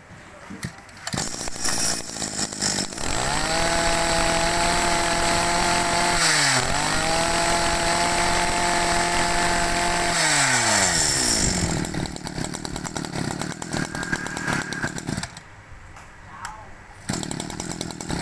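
Small 21cc brush cutter engine started, then revved up to a steady high-speed run. It dips briefly midway, revs up again, and then falls back to a low idle.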